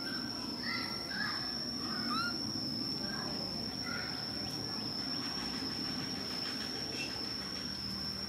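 Outdoor ambience with a steady, high-pitched insect drone, cricket- or cicada-like, held on one tone. In the first few seconds there are a few short chirping calls, some rising in pitch, over a low background rumble.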